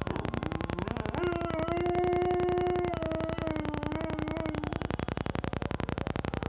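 A dog's drawn-out, pitched vocal call, more a howling whine than a rough growl. It starts about a second in, holds a steady pitch for a couple of seconds, then wavers slightly lower and stops near the two-thirds mark.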